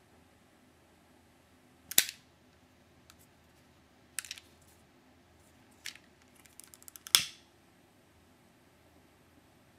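Lighter clicking: four sharp clicks about two seconds apart, with a quick run of small ticks just before the last and loudest one.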